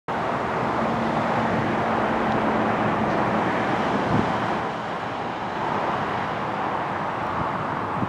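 Steady road traffic noise with a low engine hum in the first few seconds and a single knock about four seconds in.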